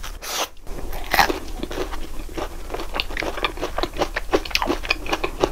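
Close-miked biting into and chewing a crisp croffle (croissant waffle) topped with whipped cream and shine muscat grapes: a rapid run of crisp crunches, the loudest about a second in.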